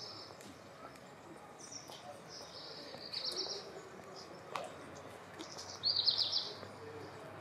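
Small birds chirping in short high, trilled bursts, the loudest about six seconds in, over faint street ambience. A single sharp click sounds about four and a half seconds in.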